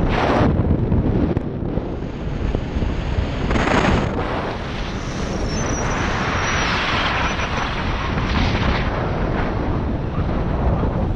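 Wind buffeting the microphone of a camera on a moving vehicle, over a steady low rumble of driving noise, with stronger gusts at the start and about four seconds in.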